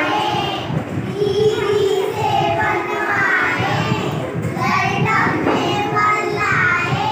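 A group of young children singing a Hindi action rhyme together in unison.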